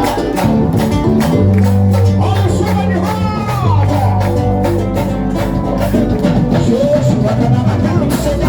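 A live band playing loud music with a steady fast beat, sustained bass and a singer's voice gliding over it.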